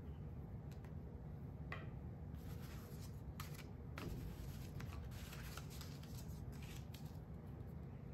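Cardstock mini folders being handled and slid on a wooden tabletop. From about two seconds in, an irregular run of paper rustles, slides and light taps comes over a low steady background hum.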